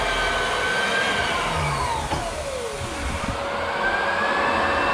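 A motor running with a whine over a steady rushing noise. About two seconds in, its pitch drops steeply as the motor slows. Then it climbs back up and levels off as the motor speeds up again.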